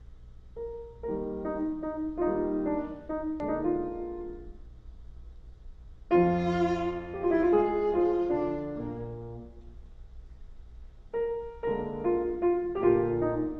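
Slow piano music: chords and single notes that ring and die away, with a loud chord about six seconds in and a new phrase starting near the end.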